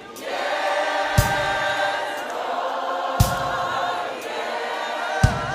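Gospel worship music: a choir singing held chords, with a sharp beat about every two seconds.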